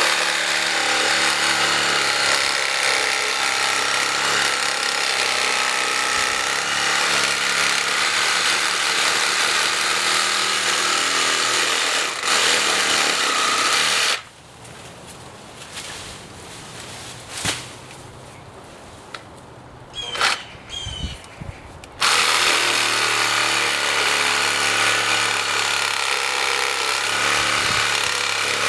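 Reciprocating saw with a Diablo 9-inch pruning blade cutting through an apple branch. It runs steadily for about fourteen seconds and stops. A few light knocks and clicks follow, and about eight seconds later the saw starts again for a second cut.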